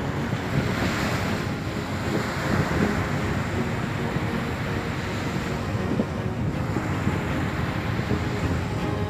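Small sea waves breaking and washing up onto a sandy beach, with wind buffeting the microphone as a steady low rumble. The wash swells about a second in and again around six to seven seconds.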